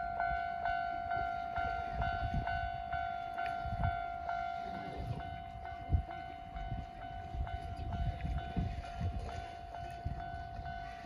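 Level-crossing warning bell ringing in an even ding-ding rhythm of about two strikes a second, over the low rumble and wheel thuds of a Nankai Main Line train passing over the crossing.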